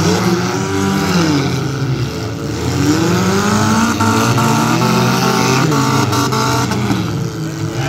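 Several race car engines revving up and easing off, overlapping, as the cars race around a figure-8 dirt track, with a few faint knocks about four to six seconds in.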